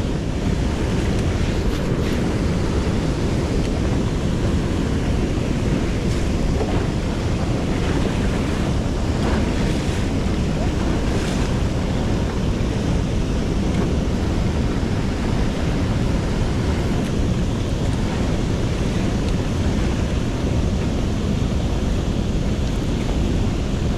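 Steady wind buffeting the microphone over rushing water.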